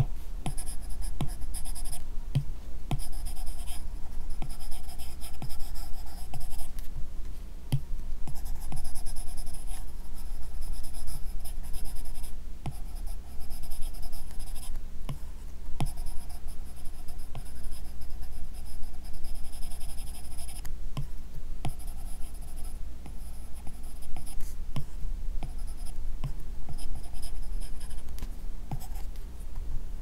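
Apple Pencil's bare plastic tip scratching across an iPad Pro screen fitted with a paper-texture film, in repeated drawing strokes of one to three seconds with short pauses. Sharp light taps of the tip on the glass come between the strokes.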